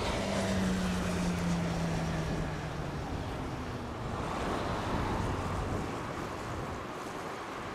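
Turboprop engines and propellers of Canadair CL-215T/415 water bombers flying low overhead. A steady low propeller hum slides slightly down in pitch over the first few seconds, over a broad rushing engine and air noise that swells again about halfway through.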